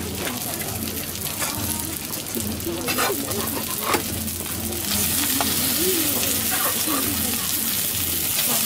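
Okonomiyaki sizzling on a flat iron teppan griddle, with metal spatulas scraping and tapping on the griddle surface, a couple of sharp taps around three and four seconds in. The sizzle grows louder about five seconds in.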